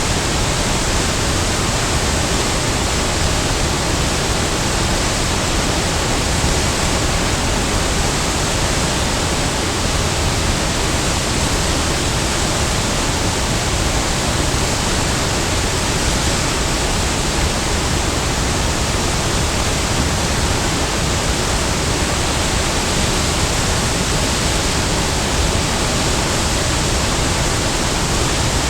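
Large waterfall: a steady, loud rush of falling water, an even roar with a lot of hiss that does not change.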